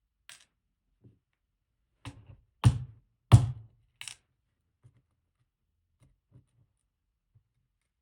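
Sharp clicks and knocks of metal parts being handled while a GEGE pExtra+ lock cylinder is taken apart to remove its pins: one light click, then four quick knocks about two seconds in, the middle two loudest.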